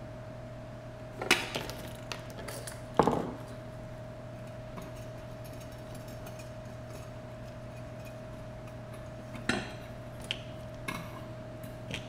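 Hand tools and small metal parts clinking and knocking against the workbench as they are picked up and set down: a couple of sharp clinks about one and three seconds in, then several lighter ones near the end, over a steady low hum.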